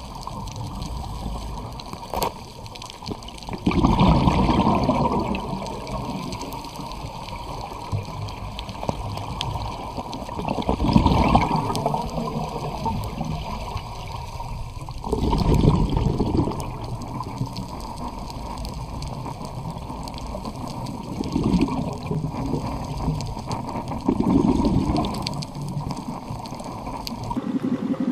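Underwater recording of water noise, with a scuba diver's exhaled bubbles rushing past in louder surges every few seconds, about five times.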